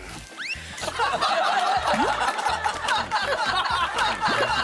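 Several people snickering and laughing over light background music, with a quick rising whistle-like sound effect about half a second in.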